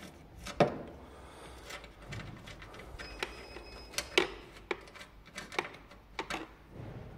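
Screwdriver clicking and scraping on a headlight mounting screw as it is unscrewed, with scattered sharp clicks against the plastic headlight housing; the loudest come about half a second in and about four seconds in.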